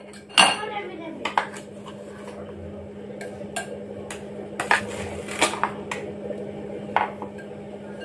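Steel spoon clinking against a steel mug and a glass mixing bowl while spooning powdered sugar, with irregular sharp clinks about once a second. A steady low hum runs underneath.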